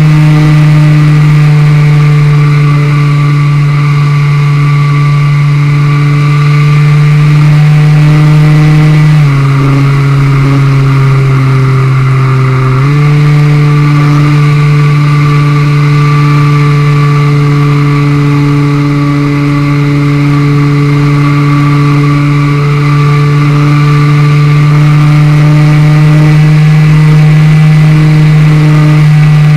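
Model plane's motor and propeller running steadily in flight, heard from a camera mounted on the plane itself. About nine seconds in the pitch drops as the motor slows, then rises back up about three and a half seconds later.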